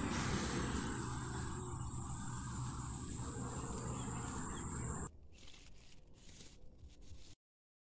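Outdoor field ambience: a steady high insect drone, like crickets, over a low rumble. About five seconds in it drops abruptly to a much fainter background, and then cuts to dead silence near the end.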